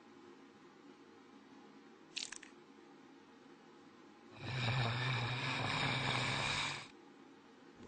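A faint click about two seconds in, then a man's long rasping breath, harsh with a low buzz, lasting about two and a half seconds.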